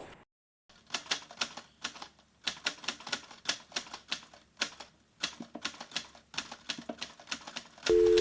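Typewriter key clicks, a quick uneven run of sharp strikes about two or three a second, as a text-typing sound effect; music comes in just before the end.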